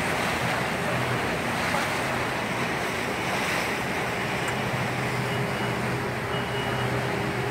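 Wind buffeting the microphone and water rushing past the hull of a small motorboat under way on choppy water, with a steady low engine hum underneath.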